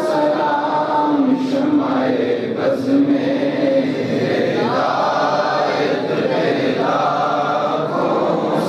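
A group of male voices chanting a Salaam, the devotional salutation to the Prophet Muhammad, together in long held notes.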